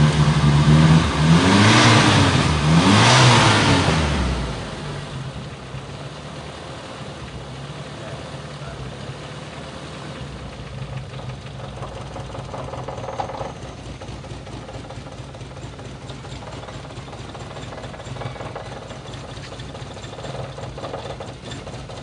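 Toyota Kijang's four-cylinder carburetted engine revved twice, the pitch rising and falling, then settling to a steady idle for the rest of the time. The engine is under diagnosis for a misfire (running 'pincang').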